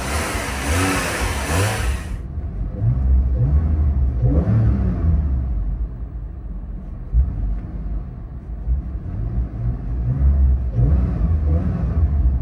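Porsche 911 Carrera's flat-six engine heard from inside the cabin, parked and idling, then revved twice, rising to nearly 4,000 rpm, through an exhaust fitted with quad tips. A brief hiss covers the first two seconds.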